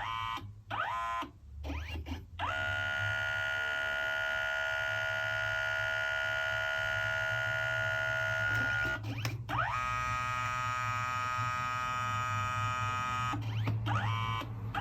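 Kodak Mini Shot 2's built-in photo printer motor whining steadily as it drives the paper through, stopping briefly several times and spinning back up with a short rising whine each time, a pattern typical of its multi-pass colour printing.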